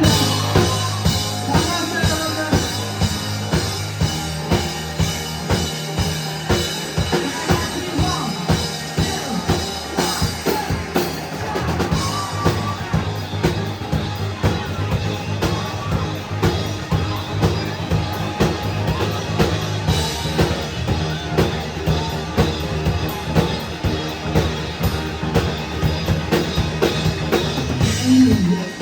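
Live rock band playing an instrumental passage: a steady drum-kit beat with kick and snare over held low notes.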